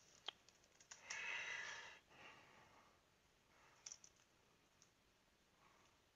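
Faint computer keyboard typing and clicks, with a short soft rush of noise lasting about a second, about a second in.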